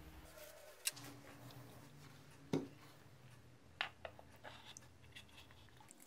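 Faint handling noise from the small wooden drawer of an antique coffee grinder being turned over and slid into the grinder's wooden base. There are a few sharp, short clicks and knocks, the clearest about one, two and a half and four seconds in.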